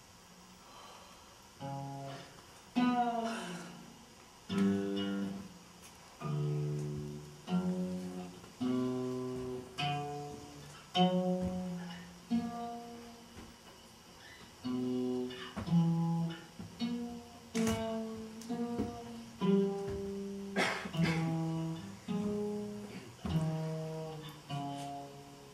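Live music on a plucked, guitar-like string instrument: slow chords or note clusters about once a second, each struck and ringing away, with sliding notes about three seconds in.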